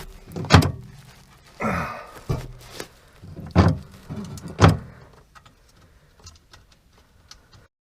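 Metal knocks and clunks from the RV step's gear and linkage assembly being handled and fitted, about five sharp knocks over the first five seconds with a short scraping rattle among them, then a few light ticks.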